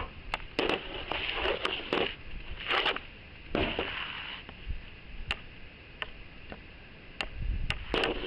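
Irregular crunching steps in snow: a run of quick crunches, then a few sparser ones with some sharp clicks.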